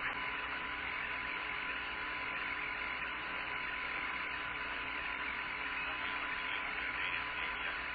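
Steady radio hiss on the Apollo 17 lunar-surface voice loop between transmissions, with a faint steady high tone underneath.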